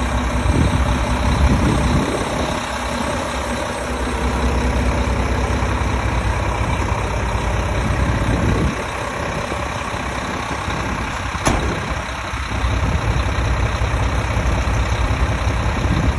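Heavy truck's diesel engine idling steadily, with a single sharp click about eleven seconds in.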